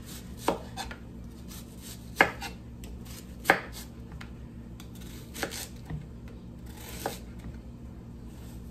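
Kitchen knife slicing through an onion onto a cutting board: about five sharp knocks as the blade meets the board, spaced a second or two apart.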